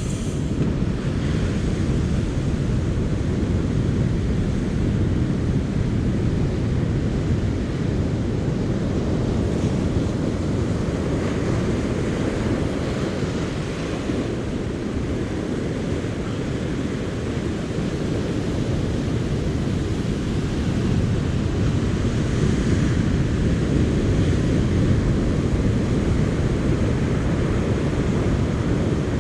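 Steady low rumble of wind buffeting the microphone, with ocean surf behind it.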